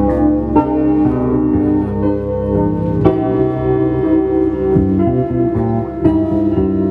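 Live instrumental music from a church band's sound check: a keyboard plays held chords that change every second or so.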